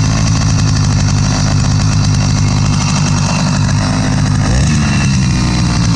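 80cc two-stroke bicycle engine kit running at a steady idle, then winding down near the end as it is shut off.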